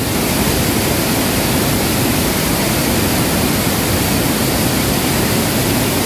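Large waterfall with heavy flow, pouring down into a rocky pool and smaller cascades: a loud, steady rush of falling water.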